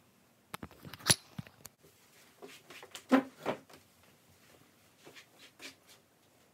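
Household items being handled and set down during kitchen cleaning: a sharp knock about a second in, a heavier double clatter around three seconds, and a few light clicks near the end.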